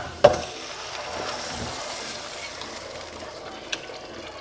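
A clunk of metal pots, then a steady hiss and sizzle as cooked spinach and lentil dal is poured from an aluminium pot into a hot saucepan of fried onions.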